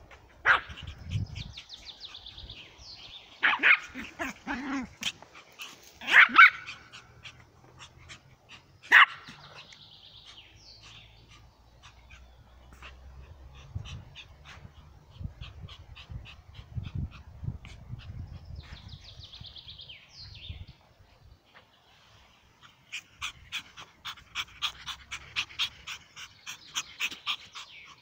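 Small fluffy dog barking sharply, a few single barks spread over the first ten seconds.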